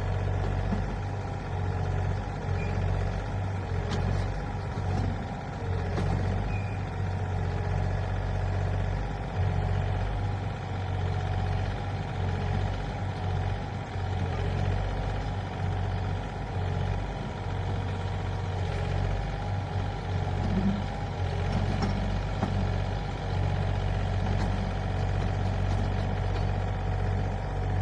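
Excavator's diesel engine running steadily at a low, even pitch, its level rising and falling a little, with a few faint clicks.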